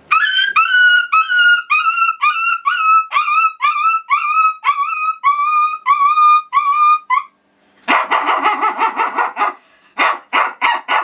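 A boy imitating a dog with his own voice: a quick run of about seventeen short, high yelps, then a longer rough bark about eight seconds in and four quick barks near the end.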